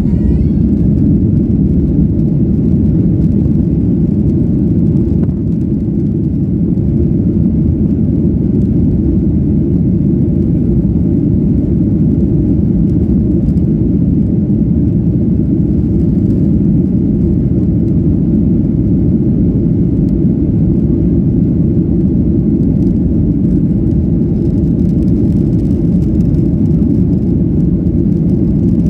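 Boeing 737 jet engines at takeoff power heard inside the passenger cabin during the takeoff roll: a steady, loud, deep roar.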